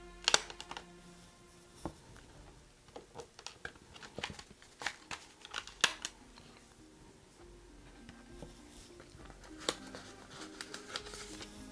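Plastic Blu-ray case and discs being handled: a series of sharp clicks and light knocks, densest in the middle, over faint background music.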